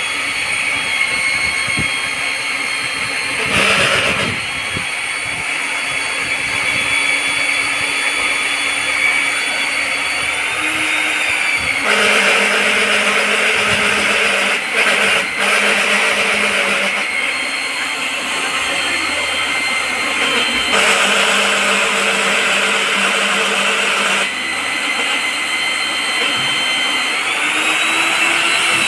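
Electric diamond core drill boring through an outer wall: a steady high motor whine with louder rough grinding for stretches of several seconds. The whine sags and climbs back twice, about ten seconds in and near the end.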